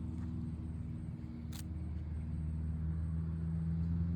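A steady low mechanical hum whose pitch shifts slightly about halfway through, with a single sharp click about a second and a half in.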